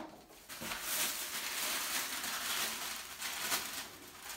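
A plastic shopping bag and paper wrapping rustling and crinkling as a wrapped item is drawn out of the bag. The rustle starts about half a second in and goes on steadily.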